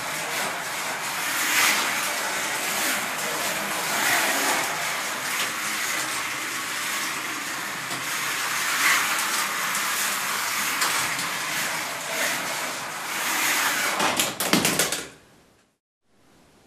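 Polistil electric slot cars running on a plastic track: a steady whir and rattle that swells now and then as a car passes. A few sharp clicks come about fourteen seconds in, then the sound cuts off suddenly a second later.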